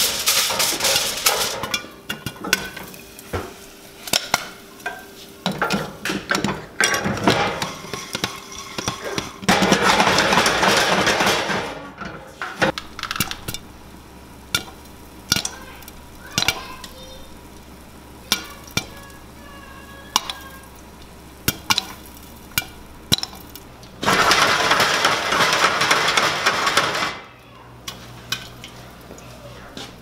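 Popcorn kernels popping in a covered saucepan on a gas burner: sharp single pops scattered all through. Three times, at the start, about ten seconds in and about twenty-four seconds in, the pot is shaken for two or three seconds, a loud rattling swish of kernels sliding in the pan.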